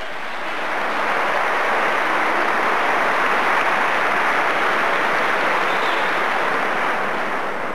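Large audience applauding steadily, swelling about a second in and easing off near the end.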